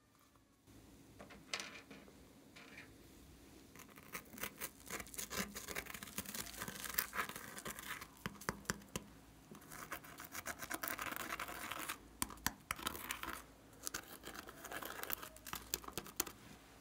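A plastic tool scraping pressed glitter eyeshadow out of a palette pan: dry scratching with many small clicks, coming in several bouts.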